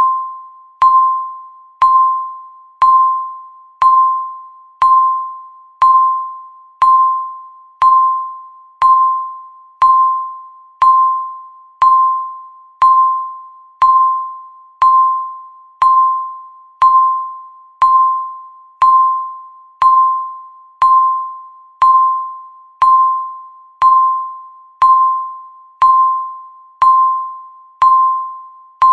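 Countdown timer beeping once a second: a single high electronic tone, each beep sharp at the start and fading away before the next, about twenty-nine in a row.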